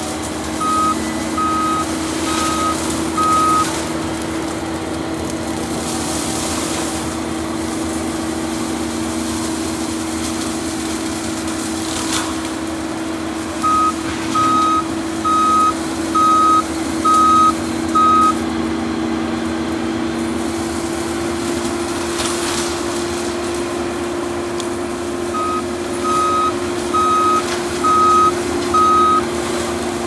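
John Deere 333G compact track loader running steadily with its mulcher attachment, a continuous machine hum. Its backup alarm beeps while it reverses, in three runs: four beeps near the start, six around the middle and five near the end, each beep a little under a second apart.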